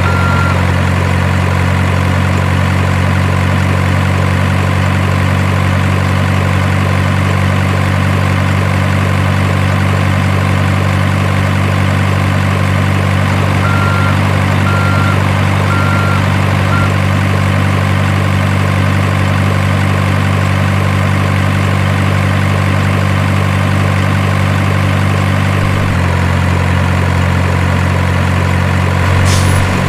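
Simulated diesel engine idling from a radio-controlled model's engine sound unit: an unchanging low hum. About halfway through, four short high beeps sound like a reversing alarm.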